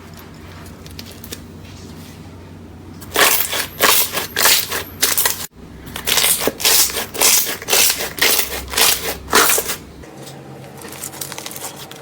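Crunchy slime being squeezed and pressed by hand. After a few seconds of low hum comes a rapid run of loud crunches and crackles, broken by a short gap a little past halfway, and it eases to lighter crackling near the end.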